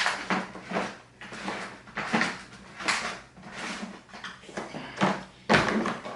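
Hard plastic parts of a Karcher K7 pressure washer knocking and rattling as they are handled and fitted together, an irregular series of clacks and scrapes with the loudest clack about five and a half seconds in.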